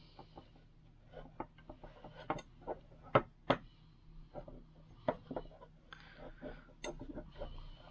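Irregular light clicks and taps of a metal weaving hook against a potholder loom's pegs and frame as yarn is woven through the warp, with two sharper clicks about three seconds in and a faint rustle of yarn being drawn through.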